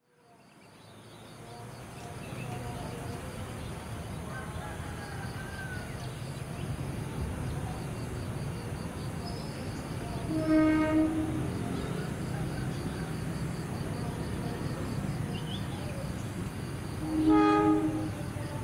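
CC 203 diesel-electric locomotive approaching with a steady low engine rumble. It sounds its horn twice: one blast about ten seconds in and another near the end, each about a second long.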